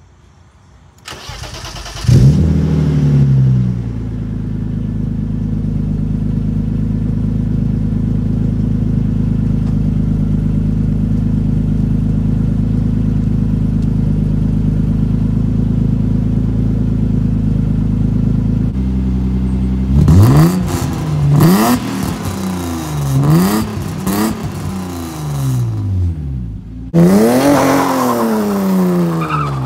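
BMW E36 engine being cranked and catching with a quick flare, then settling into a steady idle that runs high. From about 20 seconds in it is revved in a series of sharp throttle blips, with a longer rev near the end. A new MAP sensor has just been fitted, and the engine pulls without power cuts.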